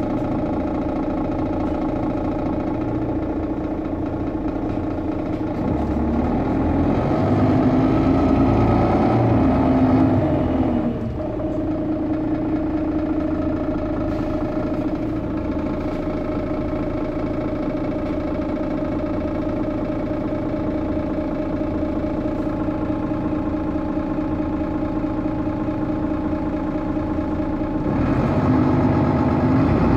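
Diesel engine of a Mercedes-Benz O530G Citaro articulated bus pulling under load. It rises in pitch and level between about six and ten seconds, drops back suddenly near eleven seconds, runs steadily, then picks up again near the end.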